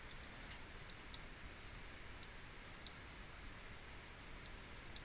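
A handful of faint, irregularly spaced computer mouse clicks over low room hiss.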